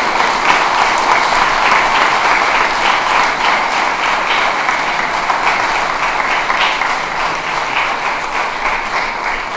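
Audience applauding: a dense, steady clatter of many hands clapping that eases off slightly near the end.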